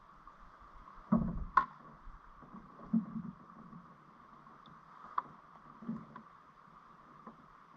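Knocks and thumps of a landing net and fishing gear against a kayak hull, a handful of them spaced a second or two apart, the loudest about a second in.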